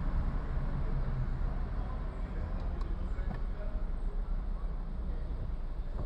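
Steady low rumble of road and traffic noise from a car driving through city streets.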